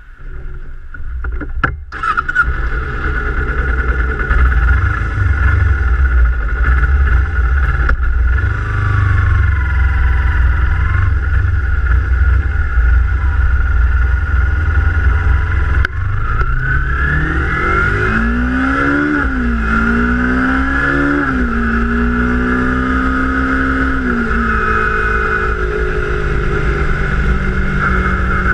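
Kawasaki Ninja 250 parallel-twin engine under way, with heavy wind rumble on a camera mounted low near the front wheel; about halfway through the engine revs rise in pitch, then drop in steps a few times as it shifts gears.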